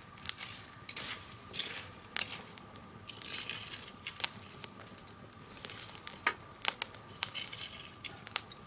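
Burning firewood crackling, with scattered sharp pops and short hissing patches.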